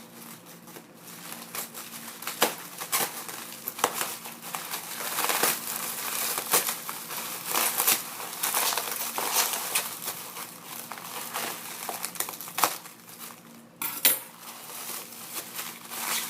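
Plastic packaging around a RAM kit crinkling and crackling as it is worked open by hand, with a few sharp clicks of the plastic.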